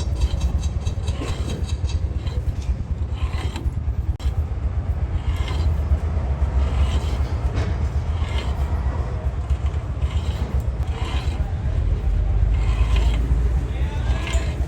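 Repeated short scraping strokes of a hand tool working metal, about one every second and a half, over a steady low rumble.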